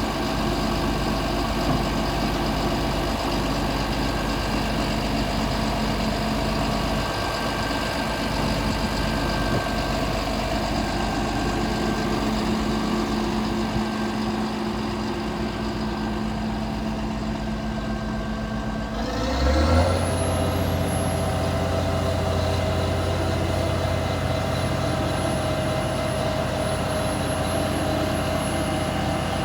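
Volvo D8H diesel engine of an asphalt paver running steadily at a low idle, then revving up about two-thirds of the way in and holding at a higher speed, with a faint high whine joining it.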